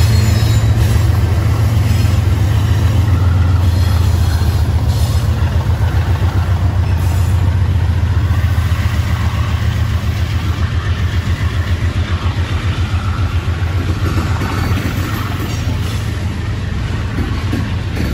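Freight diesel locomotives passing at close range, their engines running with a loud, deep, pulsing drone. Near the end the sound eases slightly as the locomotives pass and freight cars start rolling by.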